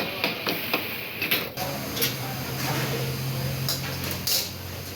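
Irregular clicks and knocks, with a steady low hum setting in about a second and a half in.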